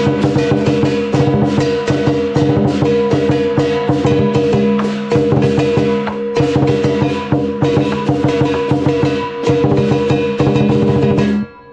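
Lion dance percussion: a lion dance drum beaten in fast, dense strokes with clashing cymbals and a ringing gong. The playing stops suddenly near the end.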